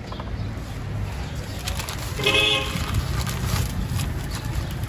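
A horn-like tone sounds once, briefly, a little over two seconds in, over a steady low rumble of street background.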